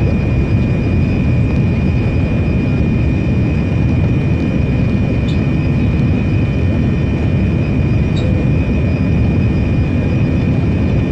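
Cabin noise of an Air India Boeing 787 Dreamliner in flight, heard inside the cabin beside the engine: a steady, loud rush of jet engine and airflow with a steady high whine above it.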